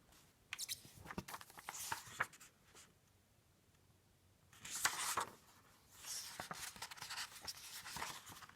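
Paper pages of a picture book being handled and turned, rustling in three bursts with light clicks and taps.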